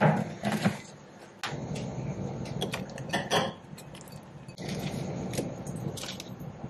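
Metal spoon scraping and clinking against a baking pan and a glass bowl while apple crisp is scooped out, with a few sharp clinks about three seconds in. At the very start comes a short clatter of a pan being handled at the oven.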